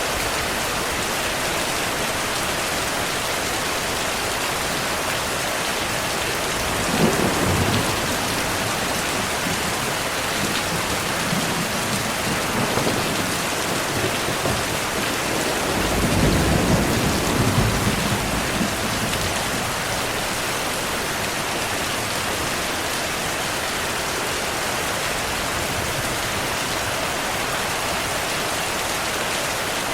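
Steady rain with two rolls of thunder: a short rumble that starts sharply about a quarter of the way in, and a longer, deeper one a little past halfway.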